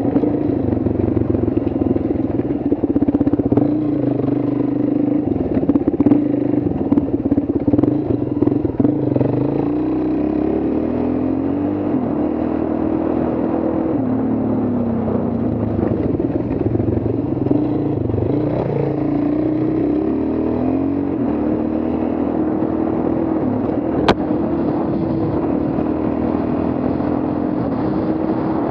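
Dual-sport motorcycle engine running under way, its pitch rising and falling as the throttle opens and closes, rougher and more uneven in the first third. One sharp click late on.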